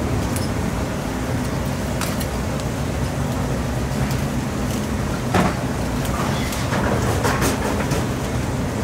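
Steady low kitchen hum with a few short clicks and taps of metal tongs handling fried corn fritters, the sharpest about five seconds in.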